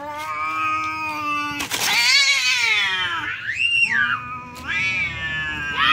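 Two cats caterwauling at each other in a territorial standoff: a run of long, wavering yowls, one rising and falling steeply midway, with a brief sharp noise about a second and a half in.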